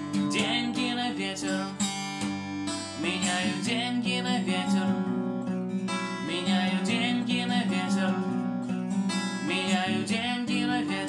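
Song accompaniment of strummed acoustic guitar over sustained low chords, with a wavering high melody line that comes in four times, about every three seconds.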